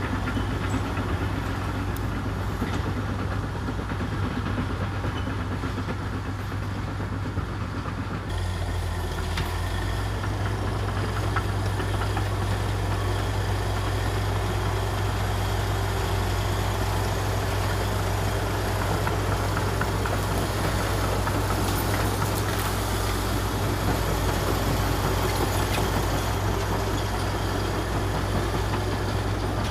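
Komatsu D61EX bulldozer's diesel engine running steadily under work, a heavy low drone whose tone shifts about eight seconds in.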